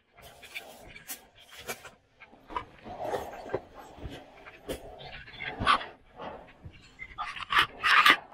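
Dry leaves, twigs and undergrowth crackling and rustling under footsteps, loudest near the end, with a dog panting.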